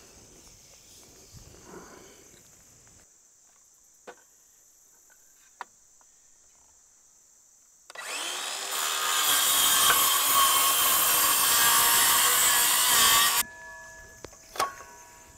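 A power circular saw starts up about eight seconds in and cuts through a round wooden fence-brace post for about five seconds, then stops suddenly, the motor running down briefly with a fading whine. Before it starts there are only a few faint clicks.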